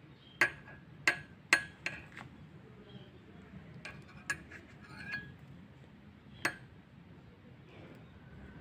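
A metal spoon clinking against a ceramic mug while stirring a drink. There is a quick run of sharp, ringing clinks in the first two seconds, then a few scattered lighter ones.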